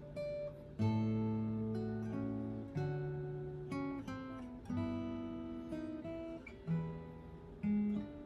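Acoustic guitar with newly fitted bone parts being played: chords and picked notes ringing out, with a new chord struck about every second.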